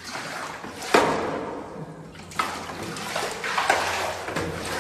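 Water pouring and splashing into a flooded basement: a continuous rushing gush with several sharper, louder splashes.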